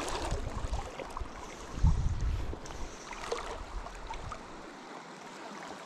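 River current flowing and rippling around the wading angler, with uneven low rumbles on the microphone, strongest about two seconds in.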